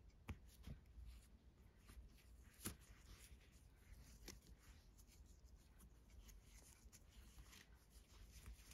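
Faint rustling and handling of nylon paracord being pulled through a knotted collar, with a few light clicks, the sharpest about two and a half seconds in.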